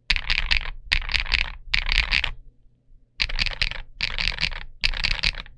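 Typing on an Akko MOD007 V3 mechanical keyboard with Princess linear switches and dye-sub PBT Cherry-profile keycaps. The keystrokes come in quick bursts of about half a second each, three bursts, a short pause, then three more.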